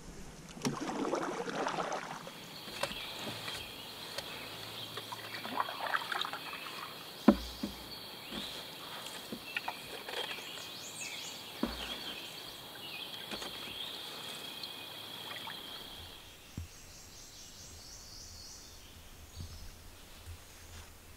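Paddling an Old Town canoe: paddle strokes splashing and dripping, with a few sharp knocks of the paddle against the hull. A steady high-pitched drone runs under it and stops about three-quarters of the way through.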